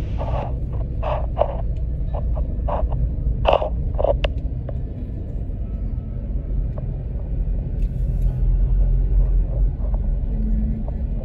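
Low, steady rumble of a car's engine and tyres heard from inside the cabin while driving slowly. In the first four seconds or so there is a string of brief, sharper sounds over the rumble.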